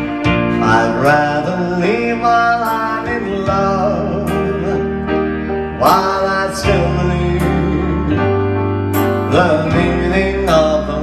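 Arranger keyboard playing the opening of a slow ballad: sustained chords over held bass notes, with a lead line that bends and wavers in pitch.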